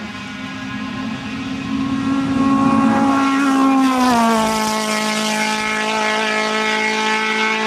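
A Škoda 110 R coupé race car's engine running hard at high revs as it passes. It grows louder, then its pitch drops about four seconds in as the car goes by, and it holds steady as the car pulls away up the hill.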